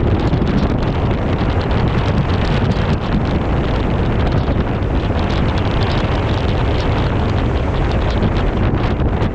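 Gale-force wind blowing across the microphone aboard a ship in a storm at sea: a loud, steady rush with constant low buffeting.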